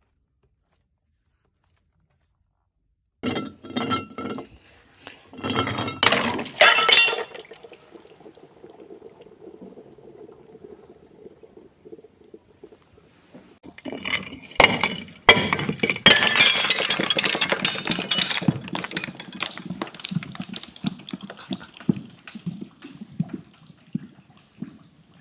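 Glass bottles being crushed and breaking, with cracking and clinking of glass. After a few seconds of silence comes a short burst of sharp cracks, then a quieter stretch, and from about halfway a long, dense run of crunching and tinkling shards.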